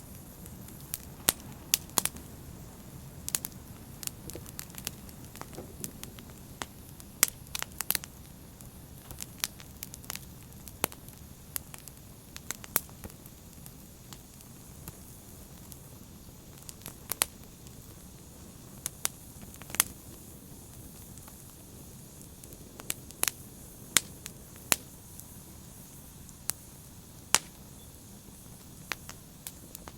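Wood fire burning, with a steady low rumble of flames and frequent sharp, irregular crackles and pops.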